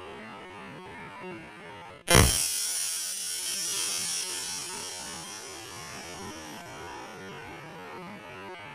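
A steady low hum, then about two seconds in a sudden sharp crack, followed by a long bright hissing rush that slowly fades.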